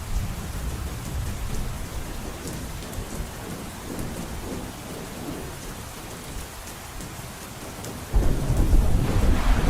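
Heavy rain on a roof, a steady hiss over an uneven low rumble. About eight seconds in, a sudden, much louder roll of thunder starts and carries on to the end.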